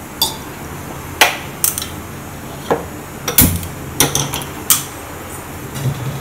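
Stainless steel pot knocking against the gas stove's grate as it is shifted and set down on the burner: several sharp metallic knocks at irregular intervals, the loudest a little past the middle with a brief ring.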